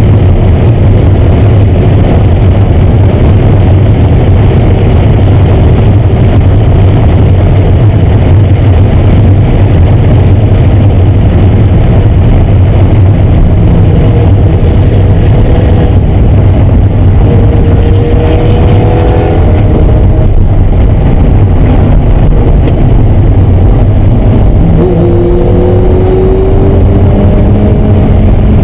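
Car engine running hard at high revs, heard from inside the cabin over a heavy low rumble. Its pitch climbs in several pulls, around the middle and again near the end.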